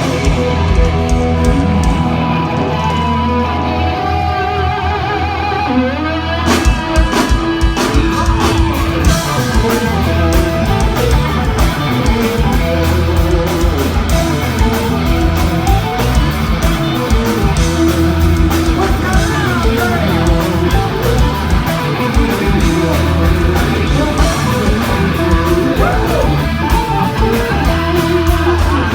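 Live funk band playing loudly, led by electric guitar over a sustained bass line. The drums come in about six seconds in and keep a steady beat.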